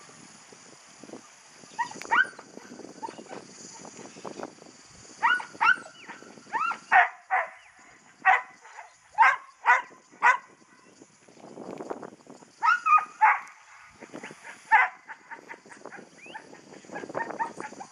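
A working dog barking at cattle as it works them: single sharp barks and quick runs of barks, busiest in the middle of the stretch.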